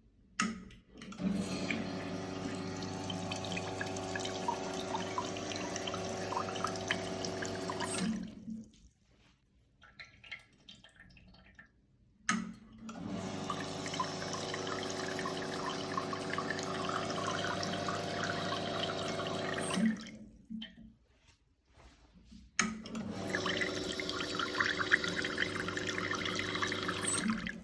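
Profitec Pro 700 espresso machine brewing three times, several seconds each, with sudden starts and stops. Each run is a steady hum of the rotary pump under a hissing, crackling rush of water. It is an abnormal brewing noise whose source part the owner is trying to find.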